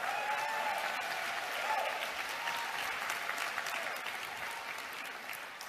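Audience applauding, many hands clapping at once, swelling in quickly and tapering off toward the end.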